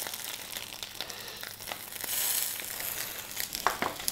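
Chicken pieces searing in hot olive oil in a frying pan: a dense sizzle full of crackles and spitting oil, swelling for a moment about halfway through.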